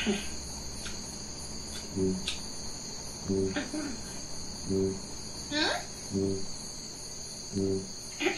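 Kakapo booming: a deep, low boom repeated five times about every second and a half. A single upward-sliding whistle sounds a little past the middle.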